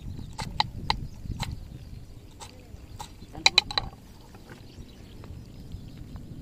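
Kitchen knife chopping cabbage on a wooden cutting board: irregular sharp knocks of the blade striking the board, with a quick cluster of three louder ones about three and a half seconds in, then the chopping stops.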